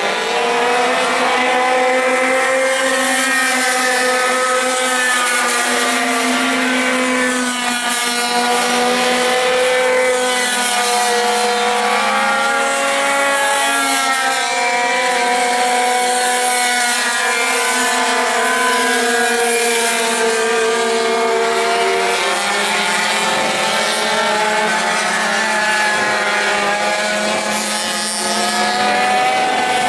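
Several racing pocket bikes lapping a track, their small high-revving engines buzzing. Each engine's pitch rises and falls as it revs up on the straights and eases off for the bends, and the engines overlap.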